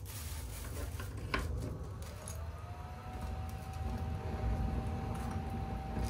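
Strong wind buffeting the microphone as a steady low rumble, with one sharp click about a second and a half in. From about two and a half seconds in, a thin whistle rises slightly in pitch and then holds steady.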